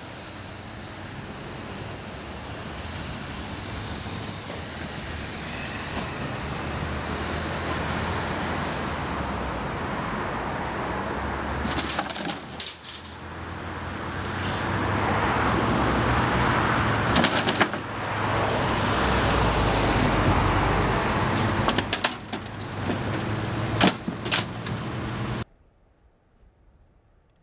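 Road traffic and heavy truck engines running, a steady rumble under a rising wash of noise with a few sharp clicks; it cuts off suddenly near the end.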